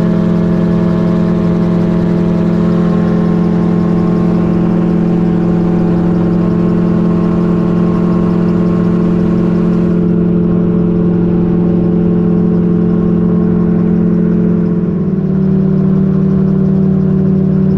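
Magni Gyro M16 gyrocopter's engine and pusher propeller running steadily in cruise flight, heard from the open cockpit. The note steps down slightly near the end.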